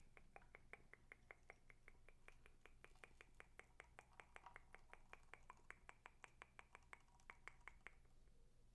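Faint, rapid, regular clicking from slime being worked by hand, about five or six sharp clicks a second, stopping about eight seconds in.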